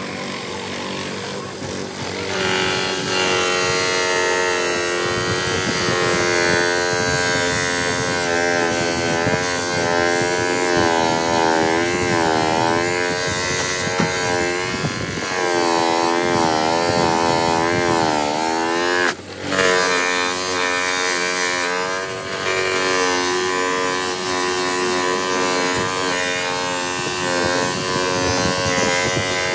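Pedestal bench polishing motor running with a red foam buffing pad as a plastic headlight lens is pressed against it, a steady motor whine whose pitch wavers up and down under the changing load. The sound dips briefly about two-thirds of the way through.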